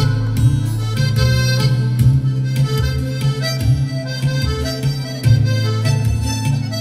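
Live traditional Celtic-style folk music led by a button accordion playing a tune over held low bass notes, with hand percussion keeping a steady beat.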